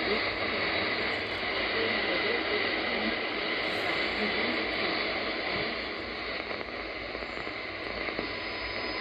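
Shortwave static and hiss from a Malachite-clone DSP SDR receiver in AM mode as it is tuned across the 49 m band, with a faint broadcast voice coming and going under the noise. Signals are weak, which is put down to a minor geomagnetic storm.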